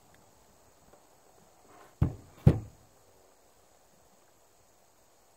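Percussion revolver's hammer snapping down twice, about half a second apart, the second snap louder. The main charge does not go off: a misfire on a chamber that still holds a bullet.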